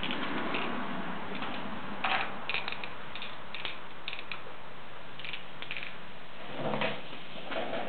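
Wooden popsicle sticks clicking and scraping lightly as they are handled and worked by hand, a few small irregular clicks from about two seconds in and a duller knock near the end, over a steady background hiss.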